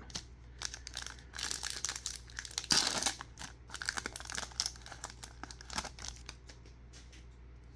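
Foil wrapper of a football trading-card pack being torn open and crinkled by hand: dense crackling, loudest about two to three seconds in, thinning to a few sparse crinkles by about six seconds.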